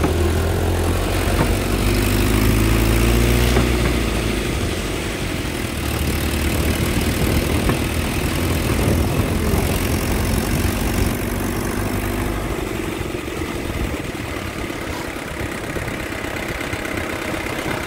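Old pickup truck's engine running as it drives slowly along a rough dirt track, with road and wind noise over the microphone. The engine note rises and falls a little in the first part and sinks into the rumble of road noise after about twelve seconds.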